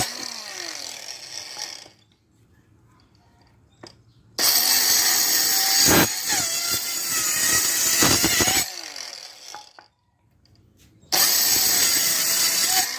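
Homemade cordless mini circular saw, an RS-895 DC motor driving a salvaged circular-saw gearbox, run in short bursts. Each time it is switched off it winds down in falling pitch. It starts again abruptly about four seconds in, runs for about four seconds and coasts down, then starts again near the end.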